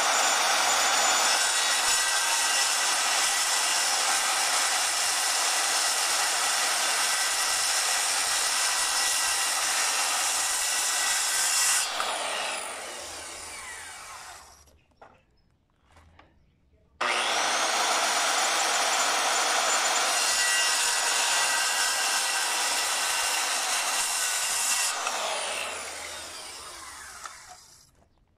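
Corded circular saw cutting into a 2x4 board. It runs for about twelve seconds, then winds down after the trigger is released. After a short silence it starts again with a rising whine, cuts for about eight seconds more, and winds down near the end. These are the saw kerfs for a stair-tread notch in the stringer, later to be chiselled out.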